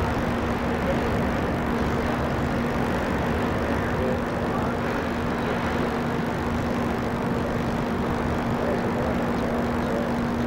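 Steady hum and rushing noise of a large ship's machinery aboard the QE2, with one constant low tone running under it.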